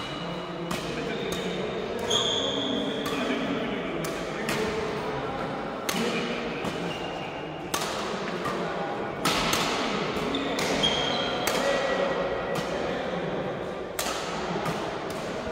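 Badminton being played in a large sports hall: repeated sharp racket hits and thuds of footsteps on the wooden court, with a few short high squeaks of shoes, all echoing in the hall.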